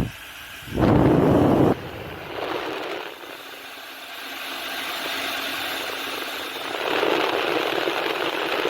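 Remington D1500 travel hair dryer cutting in with a short loud burst of blowing about a second in, then running with a steady whoosh of air and a faint hum that gets louder about seven seconds in. It has trouble starting, with sparks seen inside.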